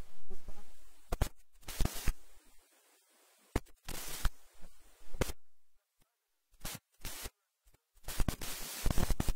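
Speech breaking up into short fragments with dead gaps between them, cutting in and out as over a poor remote call connection.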